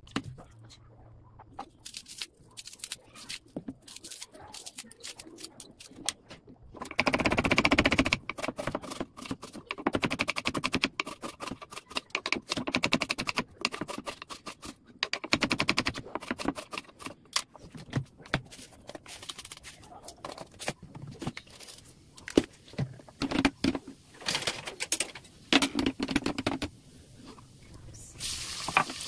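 Hot oil crackling and spitting in an aluminium pressure cooker on a gas stove: a dense, irregular run of sharp pops that swells and fades in spells.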